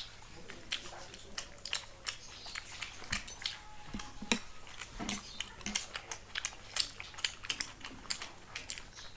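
People chewing and biting into chicken satay, close to the microphone: a quick, irregular run of wet mouth clicks and smacks.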